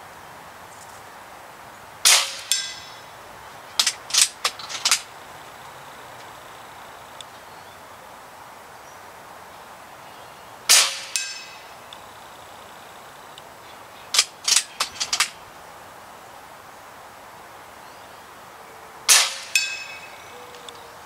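Three shots from a Barra 1100Z .22 PCP air rifle. Each is answered about half a second later by the ringing clang of the pellet striking a small steel gong at 80 yards. Between shots there is a quick run of four or five clicks, the rifle's action being cycled for the next pellet.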